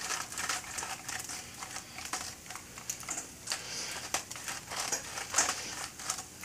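Pink salt grinder being twisted over a frying pan: a run of irregular dry crunching clicks as the salt is ground.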